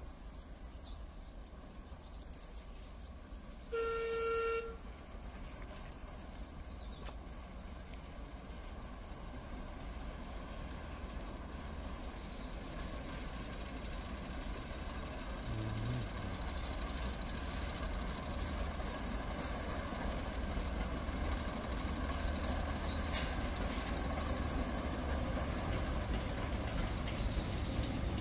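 Class 08 diesel shunter D3018 sounds its horn once, a single steady tone about a second long, about four seconds in. Then the shunter's English Electric six-cylinder diesel engine and the coaches it hauls grow steadily louder as the train approaches.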